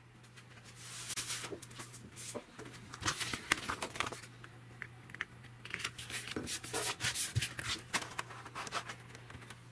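Hands handling a vinyl sheet on a plastic cutting mat: irregular rustling and scraping with scattered sharp clicks, over a low steady hum.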